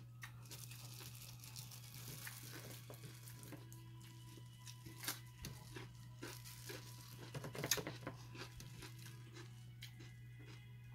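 Clear plastic food gloves crinkling as gloved fingers tear apart pieces of fried pork, then crisp bites and chewing on a raw cucumber, the sharpest bite about three-quarters of the way through. A steady low hum runs underneath.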